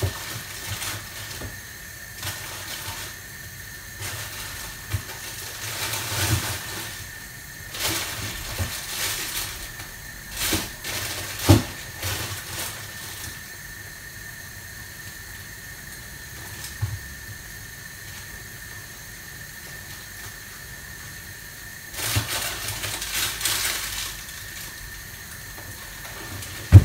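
Scattered knocks and clatters of kitchen items being handled and set down on a worktop, with a rustle or clatter near the end, over a faint steady high-pitched whine.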